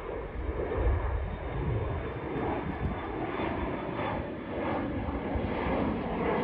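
Cessna Citation X business jet's two Rolls-Royce AE 3007 turbofans at climb power as it climbs out after takeoff: a steady rushing jet noise heard from the ground, growing slightly louder.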